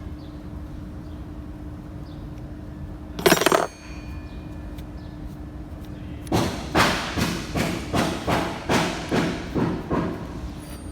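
Hammer blows on metal: one loud clattering knock about three seconds in, then a run of about ten even strikes, roughly two and a half a second, each ringing briefly. A steady low hum runs underneath.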